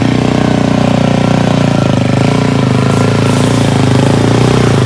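Single-cylinder engine of a Suzuki DR-Z400 dual-sport motorcycle running steadily under light throttle as it rides through a shallow river crossing, growing a little louder as it approaches, with its wheels splashing through the water.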